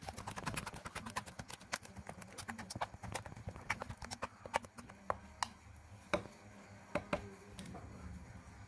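A metal spoon clinking and scraping against a ceramic bowl as it stirs a thick, wet paste: quick clicks at first, then spaced clicks about once a second, dying away near the end.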